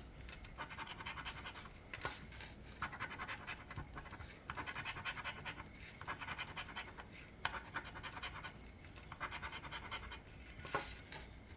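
Scratch-off lottery ticket being scratched, the coating scraped off in repeated strokes of about a second each with short pauses between.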